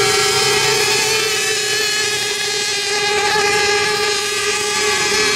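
Radio-controlled racing boats running flat out across the water: a steady, high-pitched engine whine that holds one pitch, with overtones from more than one boat.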